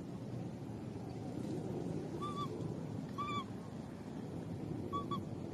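Infant macaque giving three short, high, whistle-like coos, each rising and falling briefly, over a steady low background hiss.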